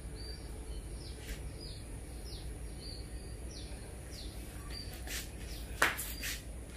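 A songbird repeating short, high chirps, each falling in pitch, about two a second, over a low steady hum. A single sharp knock about six seconds in is the loudest sound.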